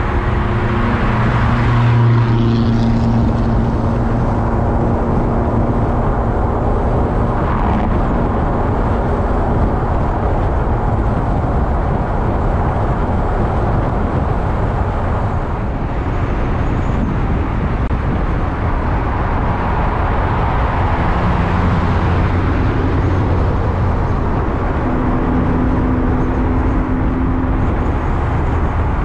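A car driving at expressway speed, heard from a camera mounted outside the car: steady road, tyre and wind noise with the engine's low hum rising and falling now and then.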